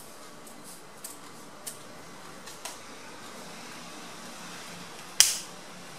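Steady fan-like room hum with a few light snips of scissors cutting satin ribbon in the first three seconds, then one sharp knock about five seconds in.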